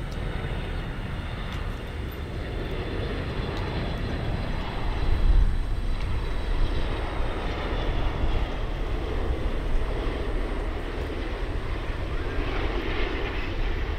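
Boeing 777 airliner's twin jet engines on final approach: steady jet noise that grows louder over the first half as the aircraft comes closer, with a faint falling whine.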